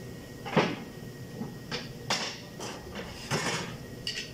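Hand tools and metal parts knocking and clattering against the car's cowl during work on the wiper linkage: about six separate sharp knocks spread over four seconds, the first the loudest.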